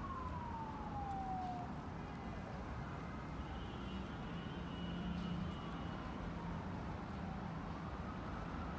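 Distant emergency-vehicle siren wailing. Its pitch falls over the first two seconds, then fainter, rising again near the end, over a low steady hum of street traffic.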